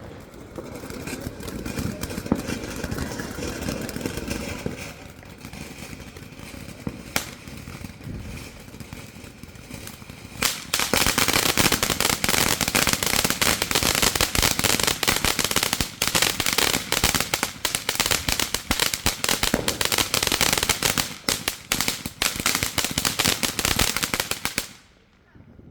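Consumer fireworks going off: a few separate bangs, then a long, dense run of rapid crackling pops that cuts off suddenly near the end.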